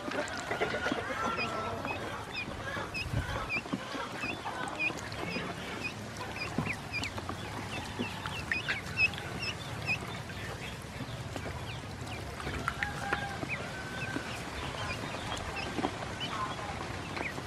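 A group of ducklings peeping continuously, with many short, high peeps several times a second, over light splashing and paddling in a metal bowl of water.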